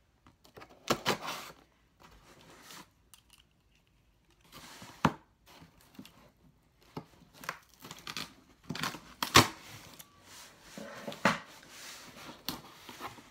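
Packing tape on a cardboard box being cut with scissors, then the box pulled open: irregular scraping, tearing and cardboard rustles broken by sharp clicks and knocks.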